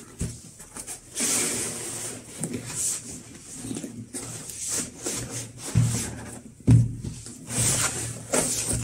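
Cardboard packaging being opened and handled: a lid and insert sliding and scraping against each other and the foam tray, with a few dull knocks about six and seven seconds in.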